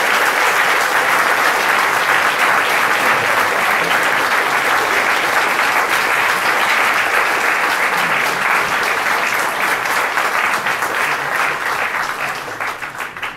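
A large seated audience applauding, a dense steady clapping that dies away near the end.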